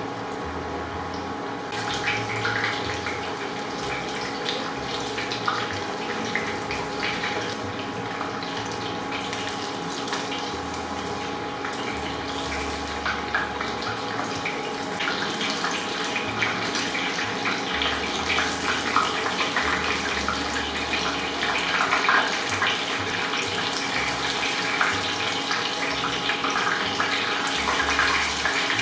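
Karaage chicken pieces deep-frying in a pot of hot oil: a steady dense sizzle and crackle of bubbling oil, growing busier and louder in the second half.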